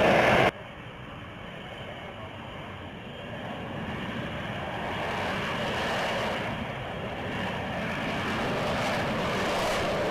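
Jet engine noise from an F-35B's single Pratt & Whitney F135 turbofan. A louder stretch cuts off abruptly about half a second in, then the engine sound builds gradually louder.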